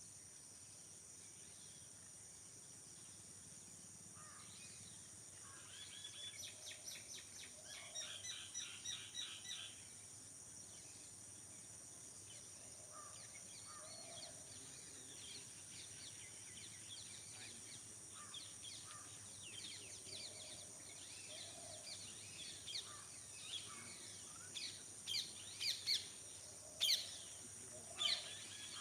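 Birds chirping in a field over a steady high-pitched insect drone. A run of quick repeated chirps comes about six seconds in, and louder, sharper calls come near the end.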